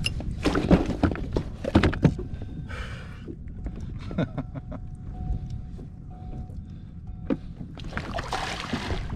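Knocks and thumps of a big bluefish being handled on a plastic kayak, loudest in the first two seconds, then water splashing near the end as a hand goes into the water beside the hull.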